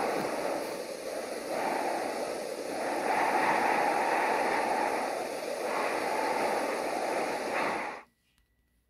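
Rushing noise from the soundtrack of news footage of Mount Etna's smoking crater, swelling and easing every second or two. It cuts off suddenly near the end.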